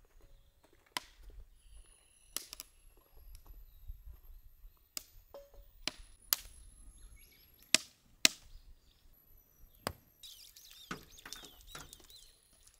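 A string of sharp, scattered knocks, about seven in the first ten seconds, followed near the end by water pouring and splashing onto pavement as a whole raw chicken is rinsed.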